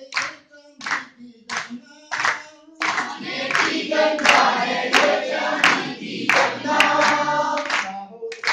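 A group clapping hands together in a steady rhythm, a little under two claps a second. From about three seconds in, several voices sing together over the clapping, stopping shortly before the end.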